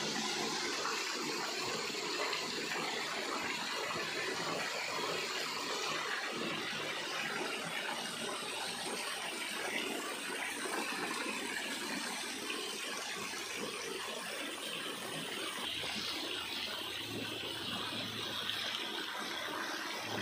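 Small garden fountain jets splashing into a pool, a steady rush of falling water.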